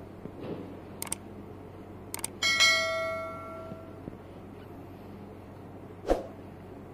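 Two sharp clicks followed by a bright bell chime that rings and fades over about a second: the click-and-ding sound effect of a subscribe-button animation. A short dull thump comes near the end.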